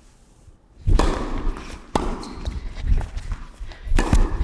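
Tennis ball thudding on an indoor hard court, a few bounces about a second apart, then the racket striking the serve near the end, each impact echoing in the hall.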